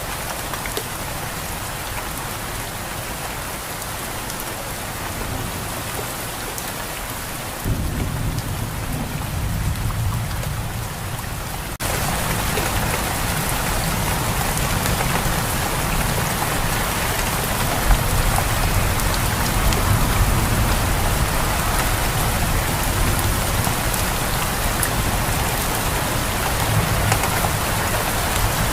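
Steady rain falling. About eight seconds in, a low rumble of thunder starts, and a few seconds later the sound switches abruptly to heavier rain with thunder rumbling underneath.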